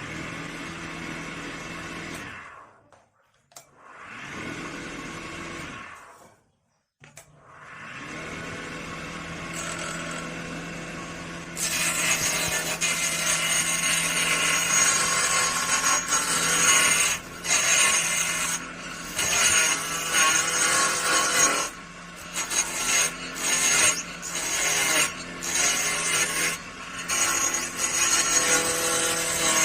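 An electric power tool working wood. It runs up and dies away twice in short spells, then cuts or sands steadily and loudly from about twelve seconds in, with frequent brief breaks.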